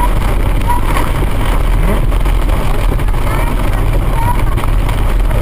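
Steady noise inside a car driving through heavy rain: tyres on the wet road, rain on the windscreen and the engine, with no sharp crack standing out.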